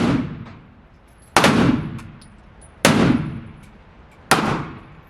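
Gunshots fired one at a time, about a second and a half apart, each with a short ringing tail.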